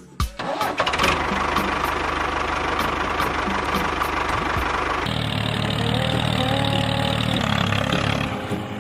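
A small engine starting and then running steadily with a low hum and fine regular ticking. About five seconds in the sound changes abruptly to background music.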